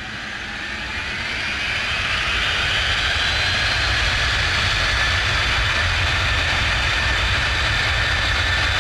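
Recorded sound of a Boeing C-17 Globemaster III's four turbofan jet engines: a whine that rises in pitch and loudness over the first three seconds, then holds steady over a low rumble.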